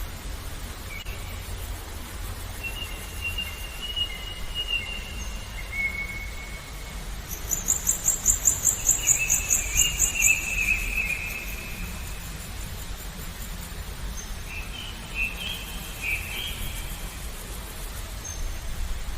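Birds calling in a recorded nature soundscape: several drawn-out whistled notes through the clip, and a fast pulsing high trill from about seven to ten seconds in, the loudest part, over a steady low background hiss.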